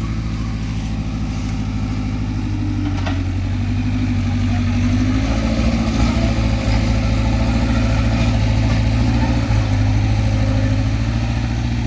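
Sumitomo hydraulic excavator's diesel engine running steadily. It gets louder and fuller from about five seconds in, then eases slightly near the end.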